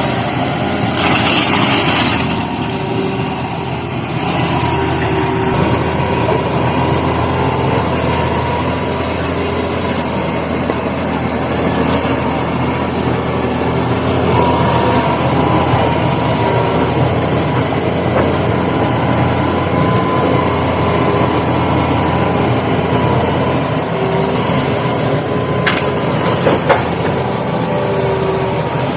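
A machine engine running steadily, with a louder burst of hiss about a second in and a couple of short clicks near the end.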